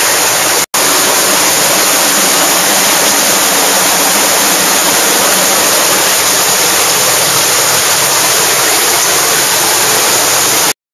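Underground water rushing steadily in a cave, loud and close. It drops out for an instant just under a second in and cuts off abruptly near the end.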